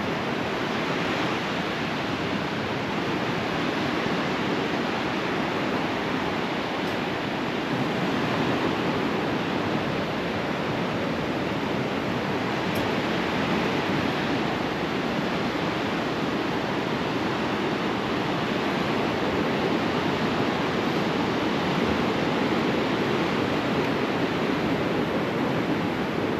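Steady rushing wash of sea surf along a rocky shore, an even noise with no distinct breaks.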